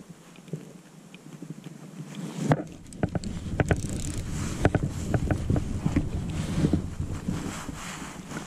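Handling noise from a fly rod with a camera mounted by the reel: line pulled through the fingers and hands moving on the rod, irregular scrapes, rustles and small knocks. The noise gets busier about two and a half seconds in, with some wind on the microphone.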